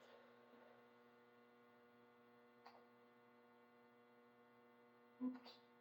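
Near silence with a steady low electrical hum from the recording setup, a faint tick about two and a half seconds in, and a short brief sound near the end.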